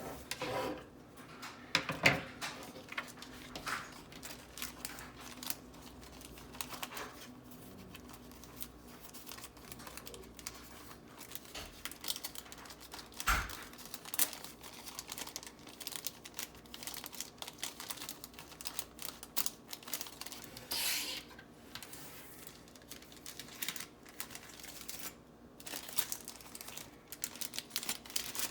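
Small plastic jewelry bags crinkling and paper cards rustling as they are handled, with many scattered light clicks and taps.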